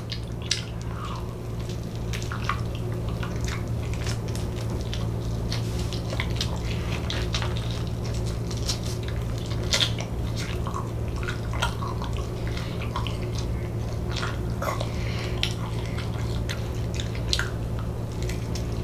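Close-miked eating sounds: wet chewing and scattered small mouth clicks and smacks from someone eating fried chicken, over a steady low electrical hum.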